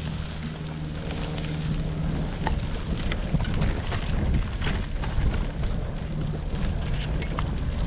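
Wind buffeting the microphone and the rumble and rattle of a road bicycle riding over a rough dirt trail, with scattered knocks from bumps. A steady low hum sits under it for the first couple of seconds, then fades out.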